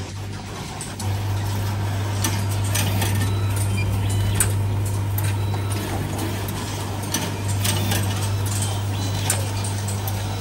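Automatic tea sachet packing machine running. A steady low hum gets louder about a second in, with irregular clicks and ticks from the mechanism throughout.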